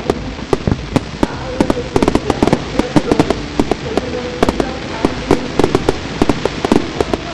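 Fireworks display with shells bursting in quick, irregular succession: sharp bangs and crackles, several a second.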